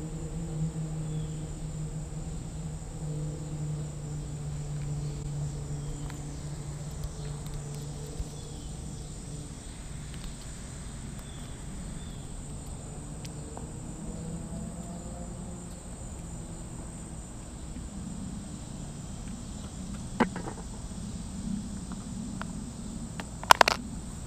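Summer outdoor ambience: a steady high insect drone, and a distant motor's low hum that fades after about ten seconds and comes back briefly. Near the end there is a sharp click, then a quick cluster of louder clicks and knocks from handling close to the camera.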